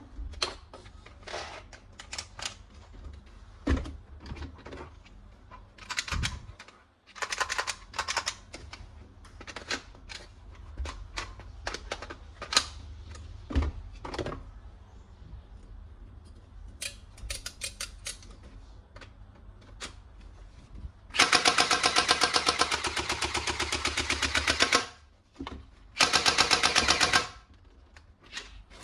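Toy gun being handled, with scattered clicks and knocks, then a toy submachine gun's rapid rattling firing sound: a loud burst of about three and a half seconds roughly two-thirds of the way in, and a second, shorter burst about a second later.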